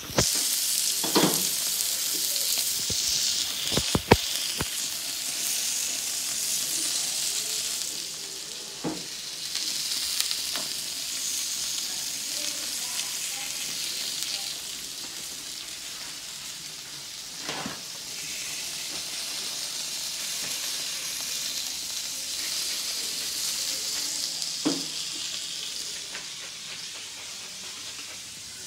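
Beef steaks sizzling on a hot gas grill: a steady, high sizzle that starts suddenly as the meat goes on and swells and fades a little, with a couple of sharp clicks about four seconds in.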